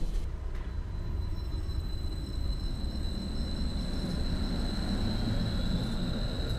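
Electric tram moving along a platform: a steady low rumble of wheels on rails under a steady high electric whine from its drive, with a fainter whine rising in pitch in the second half.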